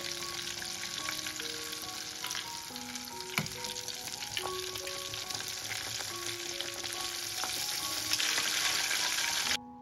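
Battered chicken breast deep-frying in hot oil, a steady loud sizzle as it is turned with metal tongs, with one sharp tap about a third of the way in. The sizzle grows louder near the end, then cuts off abruptly. Soft piano-like background music plays underneath.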